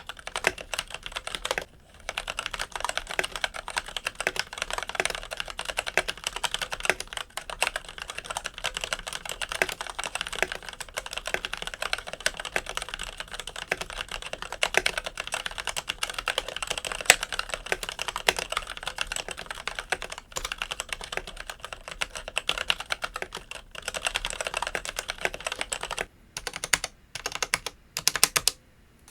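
Typing on a Logitech Signature K855 mechanical keyboard with TTC red linear switches: a fast, continuous run of keystrokes, broken by a short pause about two seconds in and a few brief pauses near the end.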